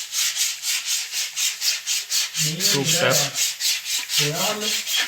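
Rapid, even scrubbing strokes, about six a second, like hand sanding or rubbing down a surface. A man's voice breaks in briefly twice, near the middle and near the end.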